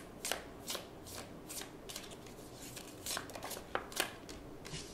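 A deck of oracle cards being shuffled by hand: a run of short, irregular card snaps and flicks.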